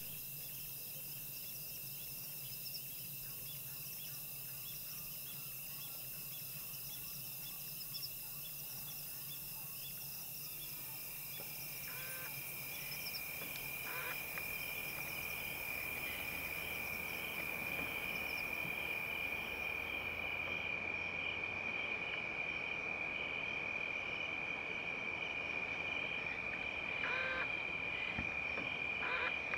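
Night chorus of trilling insects: several steady high trills and a pulsing chirp, with a louder continuous high trill coming in about a third of the way through. A few short calls sound briefly in the middle and again near the end.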